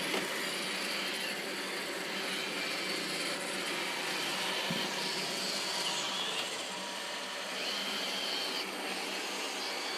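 Roomba robot vacuum running: a steady whirring with a faint high whine over it.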